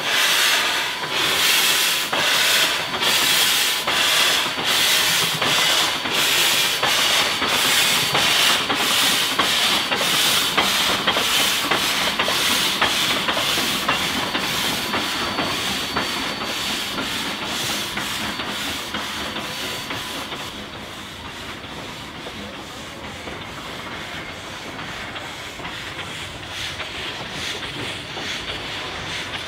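Heisler geared steam locomotive working with its cylinder cocks open, blasting steam in rhythmic hissing chuffs about twice a second. The chuffs grow fainter and less distinct after about twenty seconds as the engine draws away.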